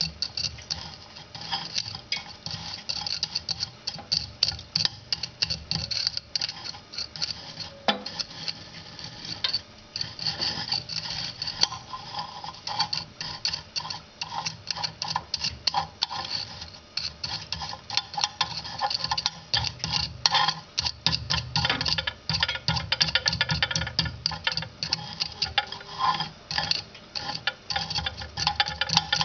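Glowing charcoal fire crackling: a dense, irregular run of sharp clicks and ticks that grows busier in the second half.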